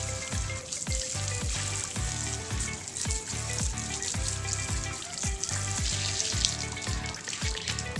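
Background music with a steady beat and bass, over a constant hiss of water spraying as the bicycle is rinsed.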